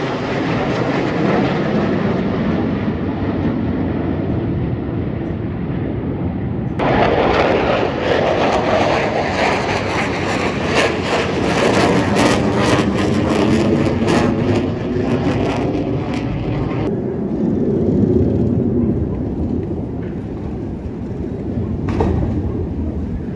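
Jet engine roar from T-50B aerobatic jets flying over. A steady rumble turns sharper and hissier about seven seconds in as a jet passes close, with a sweeping, phasing tone. It settles back to a lower rumble after about seventeen seconds.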